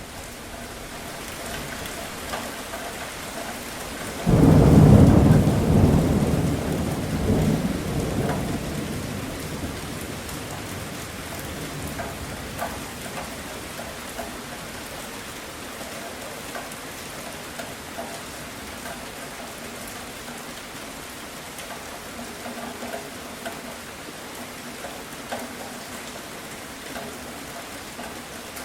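Steady rain falling, with a clap of thunder about four seconds in. It starts suddenly, rumbles loudly and low for several seconds with a second swell, then fades back into the rain.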